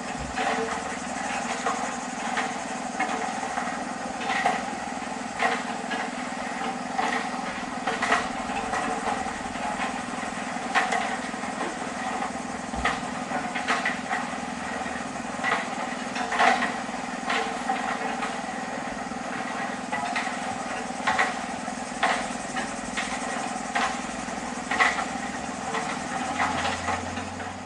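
Construction work: a machine engine running steadily, with irregular sharp knocks and clanks over it every second or so.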